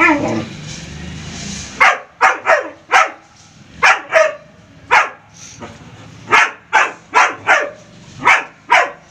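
Dog barking repeatedly: about a dozen loud, sharp barks, often in quick pairs, starting about two seconds in.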